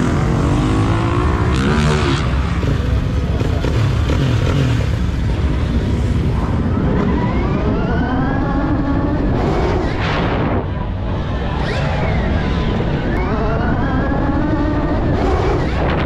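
Electric dirt bike's motor whining, its pitch climbing twice as the bike accelerates, over heavy wind rumble on the rider's camera.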